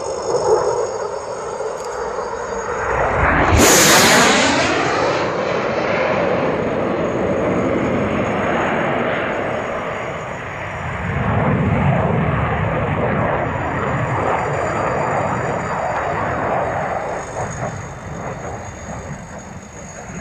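F-16 fighter jet flying a display pass: loud jet engine noise that peaks sharply about four seconds in as the jet passes closest, with a sweeping change in pitch. A long rumbling noise follows, swelling again about eleven seconds in and slowly fading near the end.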